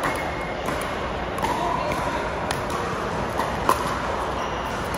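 Pickleball paddles hitting the plastic ball: about five sharp pops at uneven intervals, the loudest about three and a half seconds in, over a steady background of voices in a large echoing hall.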